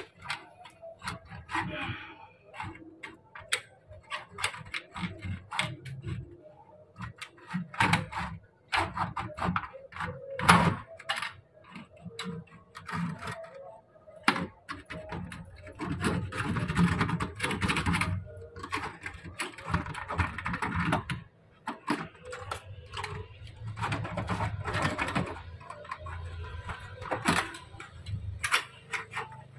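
Irregular clicking, tapping and rattling of a thin metal wire poked and worked into the gap of an aluminium sliding window frame, trying to release the stuck window.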